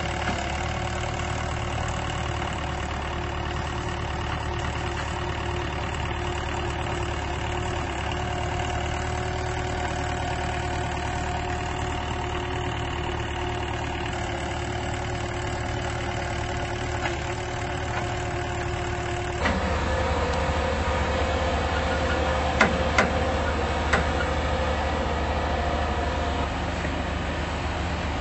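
Small crawler bulldozer's engine running steadily as it pushes sand. About 19 seconds in, the sound changes abruptly to a louder, lower engine note of heavy machinery, with three sharp metallic knocks a few seconds later.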